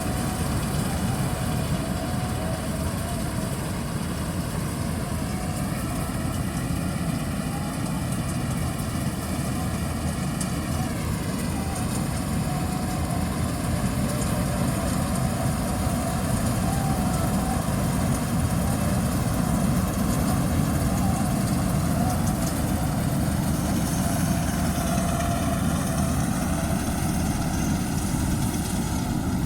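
Diesel engine of farm harvest machinery running steadily. Its pitch drifts up and drops sharply about ten seconds in, then rises again near the end.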